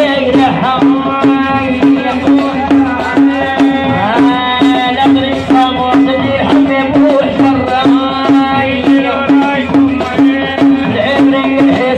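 A woman singing a medahat song through a microphone and PA, over a drum beating a quick, steady rhythm.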